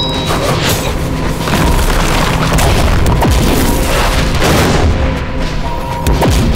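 Anime battle sound effects: a rapid series of heavy booming impacts and crashes with deep rumble, over dramatic background music.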